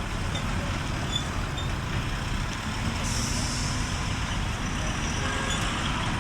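Truck engine idling with a steady low rumble; about halfway through a steady hiss of air starts and keeps going.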